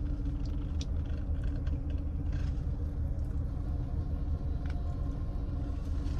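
Steady low rumble of an idling vehicle, with a faint steady hum and a few soft clicks and rustles.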